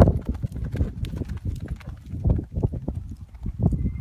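Hoofbeats of a ridden APHA paint mare running on a soft dirt arena: a quick, uneven run of dull thuds, loudest right at the start as she passes close.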